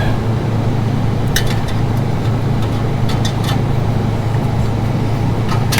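Several sharp metallic clinks of a steel spring-pulling hook working against exhaust springs and pipe, over a steady low hum.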